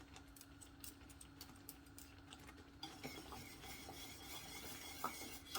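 Faint clinks and scrapes of a spoon stirring sauce in a pot, over a steady low hum. A soft hiss joins in about halfway through.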